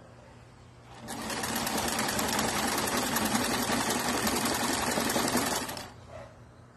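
Electric domestic sewing machine running in one burst of fast stitching through lace, starting about a second in and stopping a little before the end.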